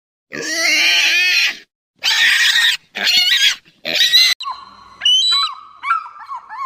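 Pigs squealing: four loud squeals in the first four and a half seconds, the first the longest. Then comes a series of fainter short, high chirping calls from a bald eagle.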